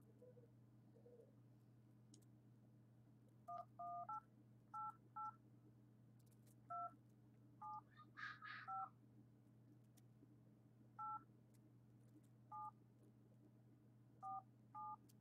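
Touch-tone telephone keypad: about a dozen short two-tone beeps at uneven spacing as keys are pressed one after another. A faint steady low hum runs underneath.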